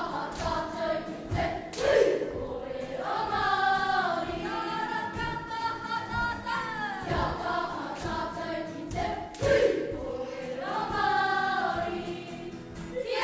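Children's kapa haka group singing a Māori action song together in long sung phrases, with a steady beat underneath.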